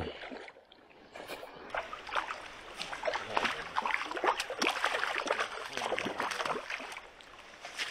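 Water splashing in quick irregular bursts: a hooked rainbow trout thrashing at the surface as it is brought in to the net.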